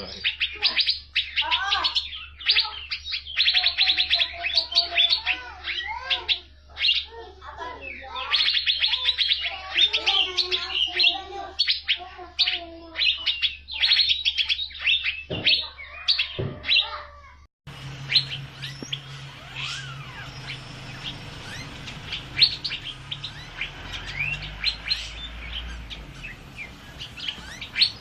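Asian fairy-bluebird (cucak biru) singing continuously: rapid, sharp chirps mixed with lower warbling whistles. About two-thirds of the way in, the recording cuts abruptly to a quieter stretch of the chirping over a low hum.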